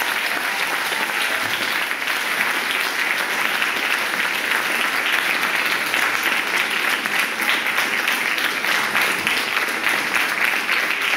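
Audience applauding steadily: a dense clatter of many hands clapping.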